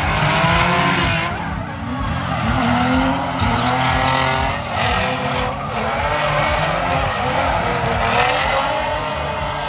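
Two drift cars in a tandem run, their engines revving hard, the pitch rising and falling as they slide, over continuous tyre squeal.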